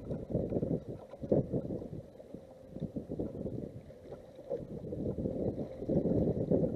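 Wind gusting over the microphone on an open bass boat, with water lapping at the hull; the gusts grow stronger near the end.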